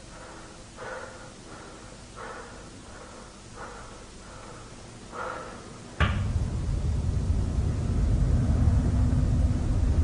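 Faint soft sounds repeating about every second and a half, then about six seconds in a loud, steady low rumble starts suddenly and holds.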